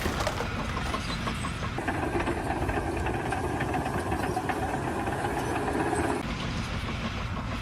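A motor or engine running steadily with a fast rattle. It gets fuller and louder from about two seconds in until about six seconds in.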